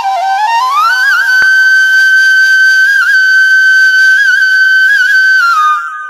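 Background music: a flute melody that climbs and then holds one long high note with small ornaments, stepping down and fading out near the end.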